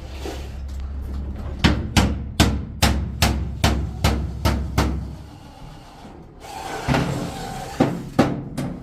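A hammer striking repeatedly in an even rhythm, about two to three blows a second, in a run of about nine blows. After a pause, more blows come near the end. A low hum lies under the first run and stops about five seconds in.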